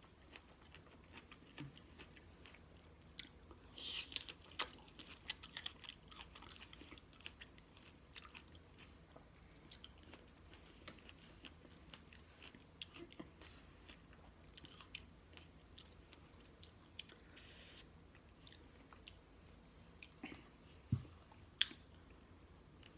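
Close-miked chewing and lip-smacking while eating strawberries: scattered soft wet clicks, a dense run of them about four to six seconds in, and a couple of louder smacks near the end.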